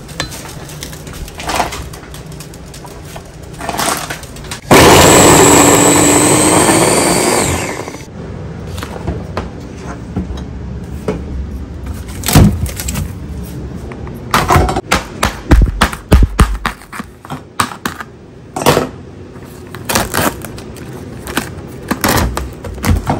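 Chopped garlic dropped into hot oil in a stainless steel saucepan: a sudden loud sizzle about five seconds in that fades away over about three seconds. Scattered knocks and clicks of kitchen handling follow.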